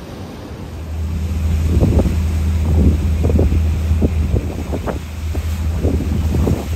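Motorboat running on the water with a steady low hum, under heavy wind buffeting the microphone in irregular gusts.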